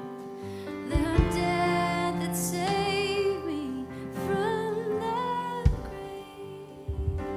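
Slow live worship music: sustained keyboard chords, with a woman's voice singing a long melodic line over them, wavering with vibrato, and deep bass notes about a second in and again near the end.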